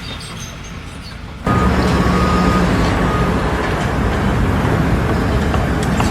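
Steady engine noise of a vehicle or heavy machine that cuts in abruptly about one and a half seconds in, after a quieter low rumble.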